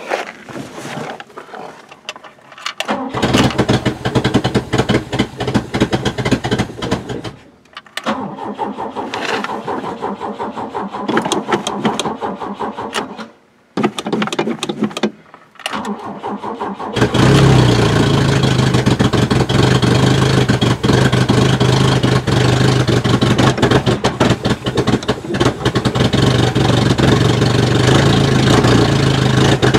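Ford Cortina Mk3's carburetted engine starting and running unevenly, cutting out twice. About halfway through it catches and runs steadily at about 1000 rpm idle.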